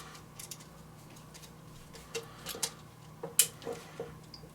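Small clicks and taps of copper wire and a plastic GFCI receptacle being handled as the white wire is pushed into the receptacle's back terminal, with one sharper click about three and a half seconds in.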